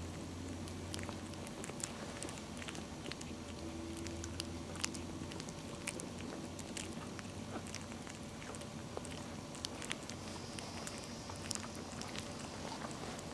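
Two-week-old puppies eating soft wet food from a plate: irregular small wet smacks and licking clicks as they chew and lap. A low steady hum lies under it for the first half.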